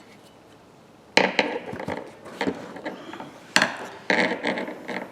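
Metal hand tools knocking, clicking and scraping against steel pipe wrench parts: two sharp knocks, each followed by a run of clicks and scrapes.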